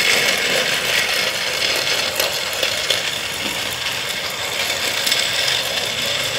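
Battery-powered Rail King toy steam locomotive running along plastic track, its small motor and gears whirring steadily with a light rattle.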